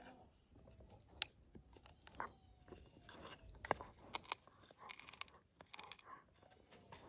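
Crisp crunching and snapping of fresh vegetables being handled, in short irregular strokes with scattered sharp clicks, the sharpest about a second in.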